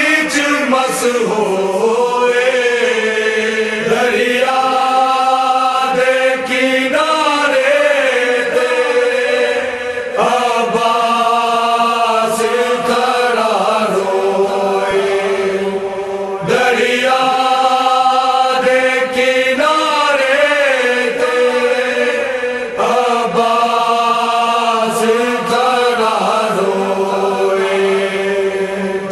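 A single voice chanting a slow melodic recitation in long, drawn-out phrases. Each phrase wavers in pitch, and a new one starts about every six seconds.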